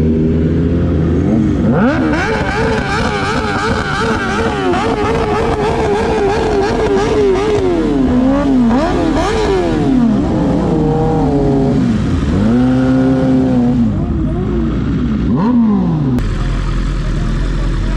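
Sport motorcycle engines being revved hard, the pitch climbing and dropping in repeated blips. A high rev is held and wavers for several seconds in the first half, then comes a run of separate rising-and-falling revs. The revving dies away near the end, leaving a steady low engine hum.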